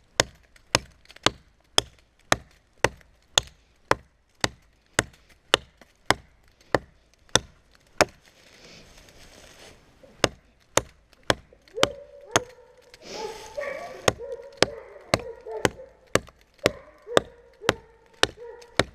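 Hatchet chopping into the trunk of a small tree: sharp strikes at a steady pace of about two a second, with a short let-up about eight seconds in before the chopping resumes.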